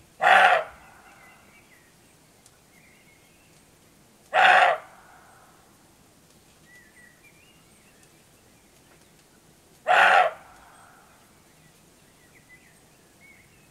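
Roebuck (male roe deer) giving three loud, harsh barks, each about half a second long, the second about four seconds after the first and the third about six seconds later: territorial barking by rival bucks.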